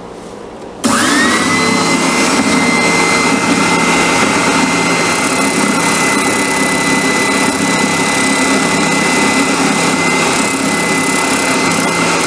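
Oscillating spindle sander switched on about a second in, its motor whine rising quickly to a steady high pitch over a dense rushing noise, while a wooden sledgehammer handle is sanded against the spinning drum.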